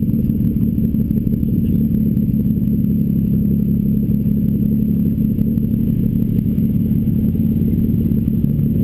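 Toyota Supra twin-turbo inline-six running steadily at low revs while the car rolls slowly, heard close up from a camera on the car's body. It makes a dense, even low rumble with no revving.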